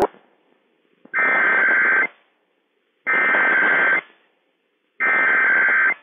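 EAS SAME header on NOAA Weather Radio: three bursts of buzzy digital data tones, each just under a second long and about a second apart, opening a Required Weekly Test.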